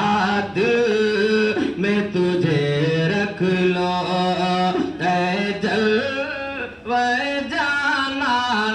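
A man singing a naat, an Urdu devotional poem, into a microphone, in long held notes that bend and slide between pitches.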